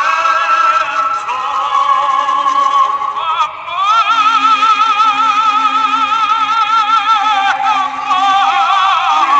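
Background music: a slow melody whose high line holds one long note with vibrato from about four seconds in until near the end, over held lower notes.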